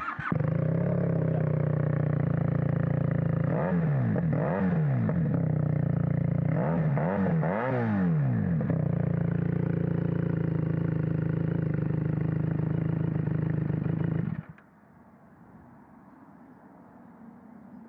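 QJ Motor SRK 400 motorcycle running through its exhaust fitted with a new silencer insert. It idles steadily, with two quick throttle blips about four seconds in and two more about seven seconds in. About fourteen seconds in the engine cuts off suddenly.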